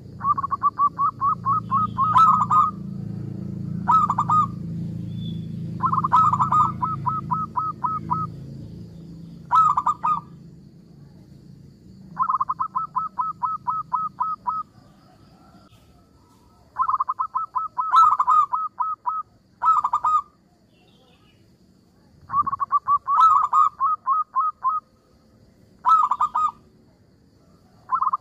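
Zebra dove (perkutut) cooing in short runs of quick, staccato notes, repeated every couple of seconds with longer pauses between some runs. A low rumble sits beneath the first several seconds.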